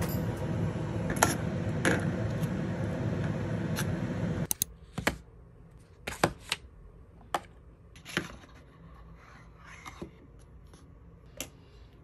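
Gas stove burner running under a small saucepan of milk, a steady rushing noise that stops about four and a half seconds in. Then light clicks and taps of cardboard cosmetic boxes and a plastic bottle being handled and set down on a desk.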